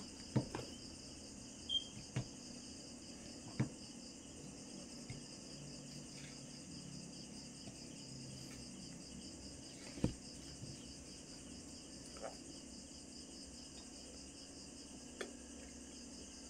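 Steel nail nippers clicking and snipping at a toenail: a handful of short sharp clicks spaced irregularly, the strongest about ten seconds in. Behind them is a steady high, evenly pulsing chirr of crickets.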